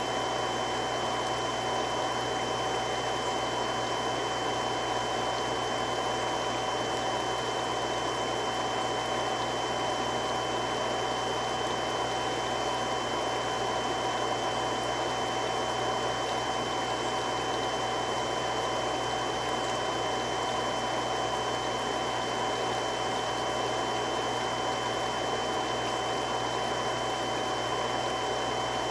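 Three-stage irrigation water pump running steadily: an even rushing noise with a few constant whining tones over it.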